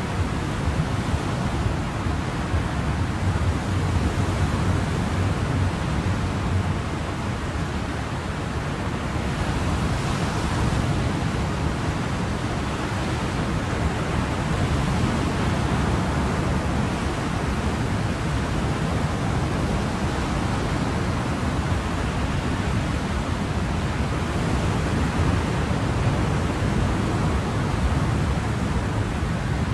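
Ocean surf: a steady, even rush of breaking waves with no other sound, swelling a little about ten seconds in.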